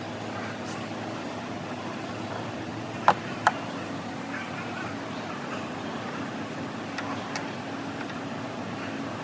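Steady low hum with two sharp clicks half a second apart about three seconds in, and two fainter ticks near seven seconds.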